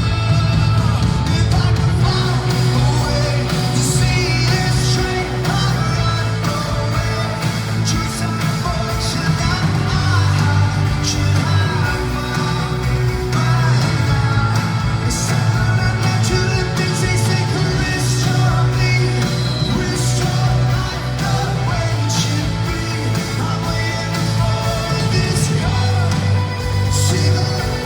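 Live rock band playing, with singing over steady drums and heavy bass guitar.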